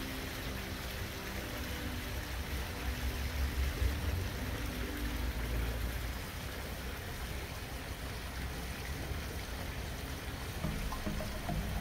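Koi pond water running steadily, a continuous watery rush. Faint background music notes sound under it in the first few seconds and come back near the end.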